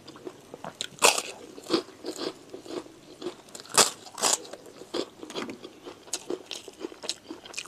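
A crisp Indonesian kerupuk cracker being bitten and chewed close to the microphone: a run of sharp, irregular crunches, the loudest about a second in and again around the middle.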